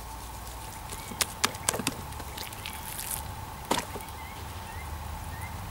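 A few sharp taps and knocks, a quick cluster about a second in and one more near four seconds, from handling the salt and raw chicken on a wooden cutting board. Faint short chirps sound in the background.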